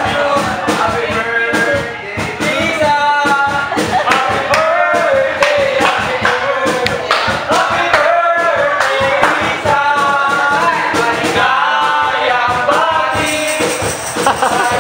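Music: a song with a lead singer over a steady percussion beat.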